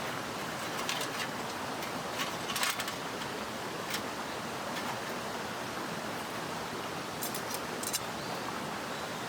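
Steady rushing of a mountain stream, with a few sharp clicks scattered through it.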